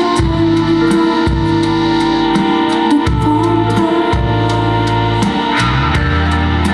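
Live pop-rock band playing: drums with regular cymbal hits, low bass notes changing about once a second, and keyboards.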